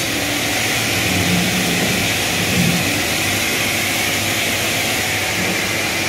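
Circular table saw running with no wood on the blade: the motor and spinning blade make a steady mechanical drone.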